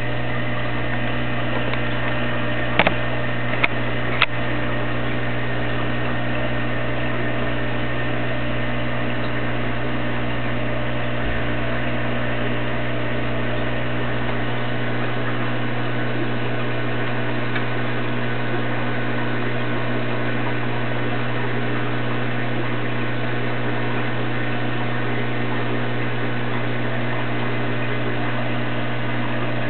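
Steady low mechanical hum with a deep drone and several fixed tones above it. Three short sharp clicks come about three to four seconds in.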